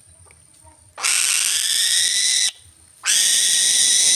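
A bird of prey giving two long, harsh screeches, each about a second and a half, the first about a second in and the second about three seconds in.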